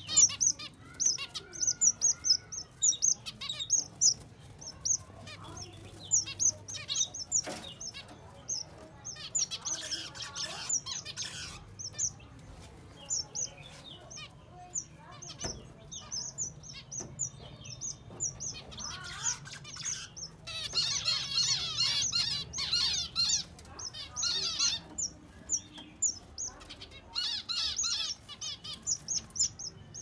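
Zebra finches calling: a steady stream of short, high calls from several birds, thickening into busy chatter about two-thirds of the way through and again near the end.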